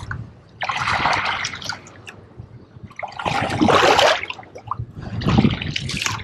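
Water sloshing and splashing over a camera held just under the sea surface, coming in three surges with quieter gaps between.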